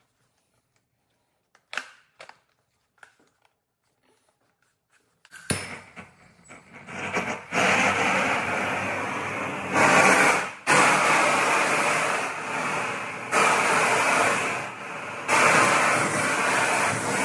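A propane-fed replica Boring Company 'Not a Flamethrower' firing. After a few faint clicks, a loud hissing roar of burning propane starts suddenly about five seconds in and runs in long blasts, with brief drops near ten, thirteen and fifteen seconds.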